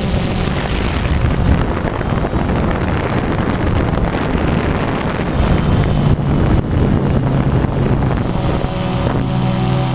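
Camera drone in flight: wind buffeting its microphone over the steady whir of its propeller motors. The motor tones come through clearly again near the end.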